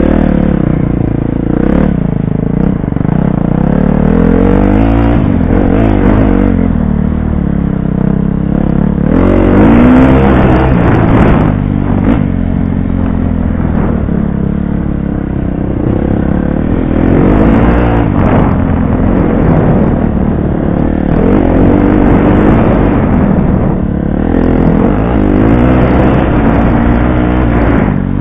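Dirt bike engine heard from on board, revving up and dropping back again and again as the rider opens and closes the throttle through the ride.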